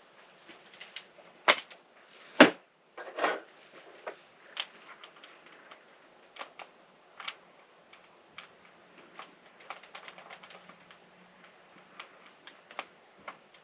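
Handling noise from swapping a cordless tool battery and setting up: a run of irregular clicks, knocks and light clatter, with two sharp knocks about one and a half and two and a half seconds in.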